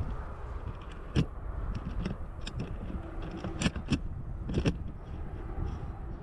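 Ride noise from an e-bike rolling along a pathway: a steady low rumble of tyres and wind, with a few sharp clicks and rattles. The loudest click comes about a second in, and a cluster follows around the middle.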